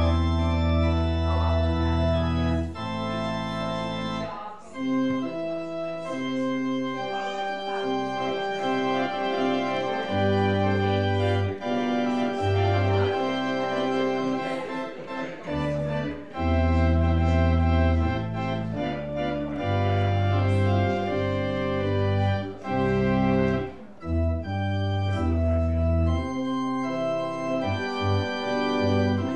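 Church organ playing full sustained chords over a deep pedal bass, the chords changing every second or two: a wedding recessional.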